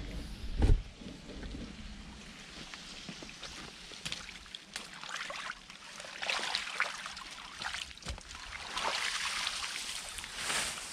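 A long-handled tool scraping wet leaves and mud along the bottom of a concrete irrigation channel in several strokes, with shallow water trickling and sloshing. There is a single loud thump about a second in.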